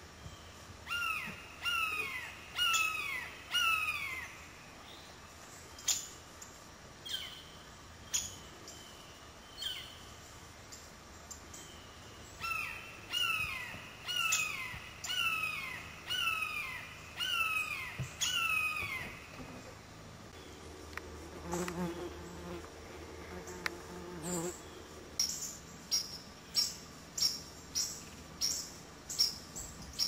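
Red-shouldered hawk calling: runs of descending 'kee-ah' screams in quick succession, twice, with single calls between the runs. Near the end a small bird gives quick high chip notes, about one and a half a second.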